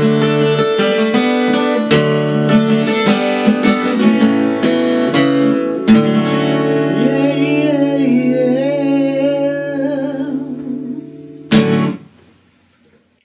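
Acoustic guitar strummed in a steady rhythm, then a chord left to ring about halfway through while a man sings a long wordless note with vibrato over it. A final sharp strummed chord near the end is cut short and the music stops.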